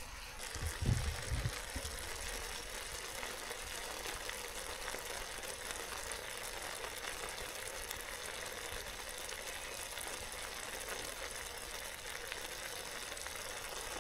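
Chicken and rice sizzling steadily in a Trangia camping-stove pan as sauce is stirred in, with a few soft low thumps about a second in.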